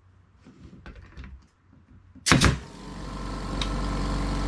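Pneumatic brad nailer firing a 50 mm brad into wood with a sharp double crack about two seconds in. Right after it, the Hyundai HY5508 oil-free air compressor's motor starts and runs with a steady hum that grows louder as it refills the tank.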